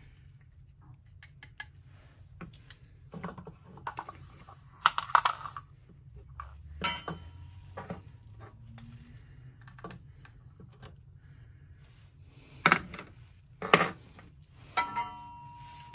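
Small plastic clicks and clatter from a hammer-type inertia bullet puller being handled and its cap worked, the bullet already knocked free inside. A few sharper knocks come about five seconds in and twice near the end.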